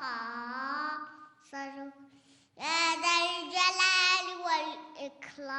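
A child's voice chanting an Arabic supplication in the drawn-out melodic style of Quran recitation, holding and bending long notes in several phrases with short breaks between them.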